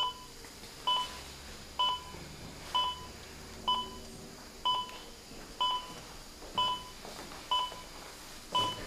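Bedside heart monitor beeping with the patient's pulse: a short, steady beep about once a second, ten beeps in all.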